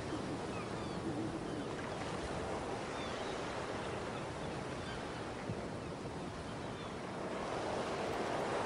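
Ocean surf ambience: a steady wash of waves that swells a little near the end.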